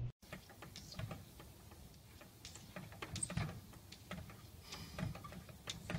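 Faint, irregular light taps and clicks, about a dozen scattered through a few seconds, over quiet background noise.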